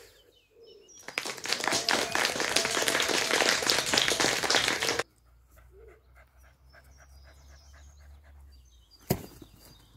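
A dog panting hard, loud and close for about four seconds, then much quieter, with one sharp click near the end.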